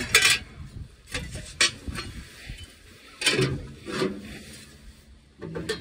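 Handling noise from someone working on a tractor's dash: irregular sharp knocks and clunks, about half a dozen, with rubbing and scraping sounds between them.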